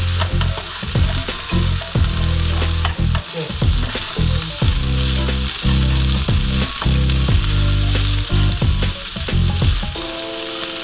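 Food frying in a hot pan: a steady crackling sizzle.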